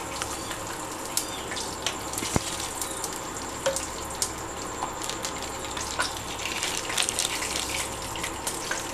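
Hot sesame oil sizzling in a frying pan after mustard seeds, turmeric and asafoetida have gone in: a steady sizzle with scattered sharp crackles and pops.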